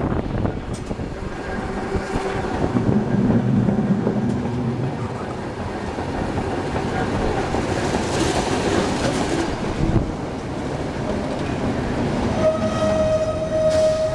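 A Perley Thomas streetcar running along its track, heard from inside the car: a steady rumble of wheels on rails. About eight seconds in, a second streetcar passes close by with a brief swell of rushing noise. Near the end a steady high tone sets in and holds for a couple of seconds.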